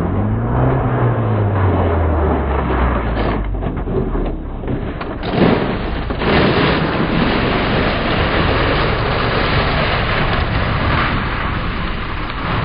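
A motorcycle engine note swells and falls away over the first two seconds. It gives way to a loud, steady rushing noise for the rest.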